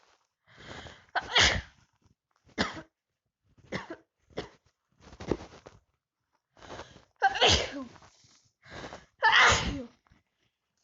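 A person with a cold sneezing over and over: a run of short, sharp sneezes, the two loudest about seven and a half and nine and a half seconds in.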